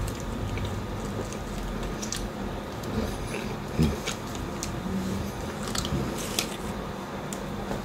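A person chewing a very chewy banana toffee, with sticky, wet mouth clicks and smacks scattered throughout.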